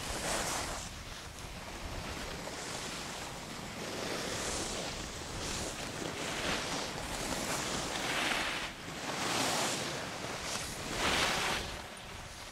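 Wind buffeting the camera's microphone: a rushing noise that swells and fades every second or two.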